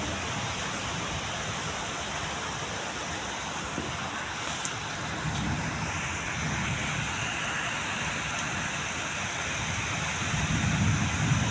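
Steady rain falling, a continuous even hiss, with a low rumble swelling near the end.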